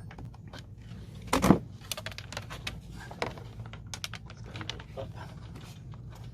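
Handling noise of a wire being fished through a leaf blower's plastic housing: scattered small clicks and rattles, with one louder knock about one and a half seconds in.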